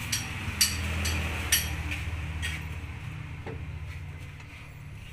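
Four light metallic clinks in the first two and a half seconds, each with a short high ring, over a low hum that swells and then fades away about three and a half seconds in.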